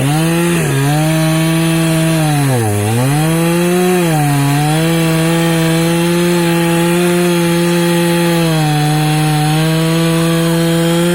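Lider RC52 two-stroke chainsaw at full throttle cutting through firewood. Its pitch drops sharply twice, about half a second and about three seconds in, as the chain bogs under load, then holds steady through the cut.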